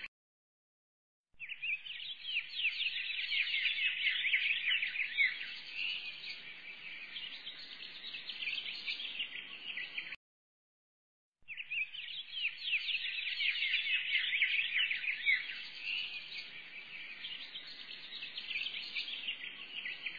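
A looped recording of a flock of small birds chirping busily in a high, dense chatter, playing through twice with about a second of dead silence before each repeat.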